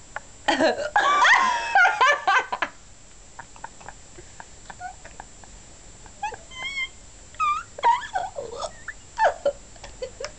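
A pet animal making short, high whining and yelping calls, several in a row from about six seconds in. A louder burst of vocal sound comes near the start.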